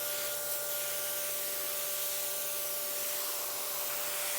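Sun Joe 13-amp electric pressure washer running and spraying, a steady hiss of water with a steady motor whine.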